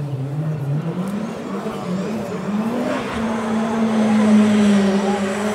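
Rally car engine approaching at full throttle, its revs climbing over the first three seconds and then held high as it gets steadily louder.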